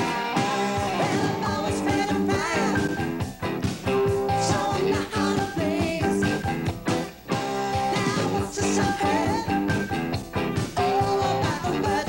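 Rock band playing a song, with singing over guitar.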